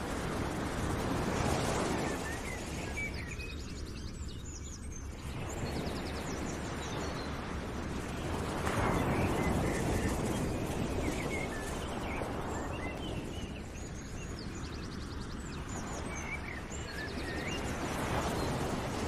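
Background nature ambience: a rushing noise that swells and fades about every eight seconds, with birds chirping over it.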